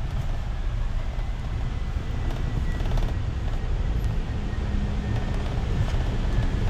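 City bus running, a steady low engine rumble heard from inside the bus. A steady hum joins it about four seconds in.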